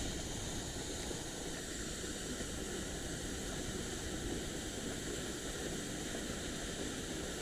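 Steady, even rushing of water pouring over a dam spillway.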